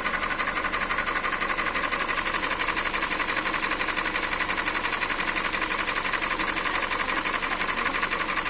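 2013 Hyundai Elantra 1.8-litre four-cylinder engine running steadily with a fast, even ticking knock: the engine knock the owner is trying to trace.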